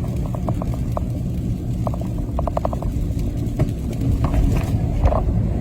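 Truck driving on an icy road, heard from inside the cab: a steady low rumble of engine and tyres, with runs of quick light clicks.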